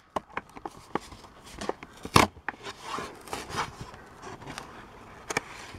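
Clear plastic blister pack and cardboard backing being handled and pried apart by hand: scattered light clicks and crackles of stiff plastic, the sharpest about two seconds in.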